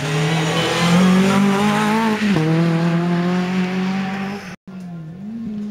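Renault Clio rally car engine accelerating hard, its pitch climbing, with a sharp dip at a gear change about two seconds in before it pulls on steadily. Near the end the sound cuts out for an instant and a quieter engine with a wavering pitch follows.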